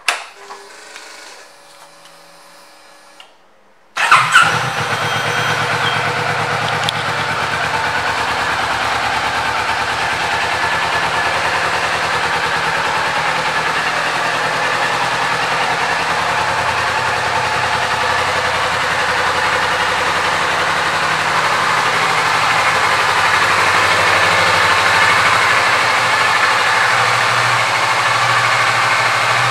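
A 2023 Kawasaki Vulcan S's 649 cc parallel-twin engine starts about four seconds in, catching at once after a faint click, then idles steadily, a little louder in the last several seconds.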